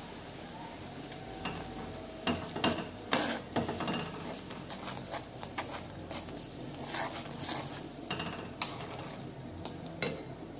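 Metal spatula scraping and clinking against a metal pan in irregular strokes while stirring spices into a coconut-milk gravy that is coming to the boil, over a low steady hiss from the bubbling gravy.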